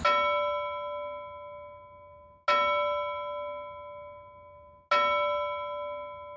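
A bell-like chime struck three times, about two and a half seconds apart, each strike ringing out clearly and fading away.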